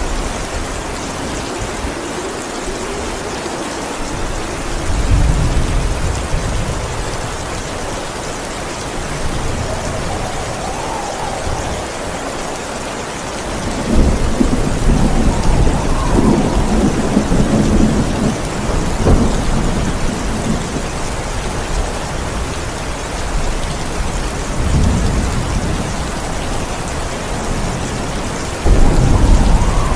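Steady heavy rain with rolling thunder. The rumbles swell a few seconds in, again through the middle for several seconds, and a loud sudden crack comes near the end.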